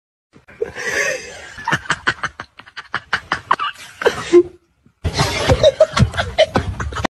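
People laughing and snickering in short, broken bursts. After a brief pause about five seconds in, a louder, rougher stretch of laughter and commotion follows.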